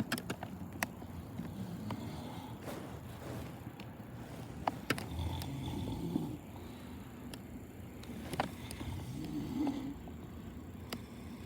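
A man snoring in his sleep, two long rasping snores about four seconds apart in the second half, with a few sharp clicks and knocks scattered through.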